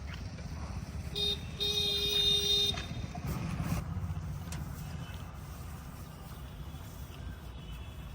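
Diesel engines of a backhoe loader and tractor running steadily, with a vehicle horn sounding about a second in: a short toot, then a longer blast of a bit over a second.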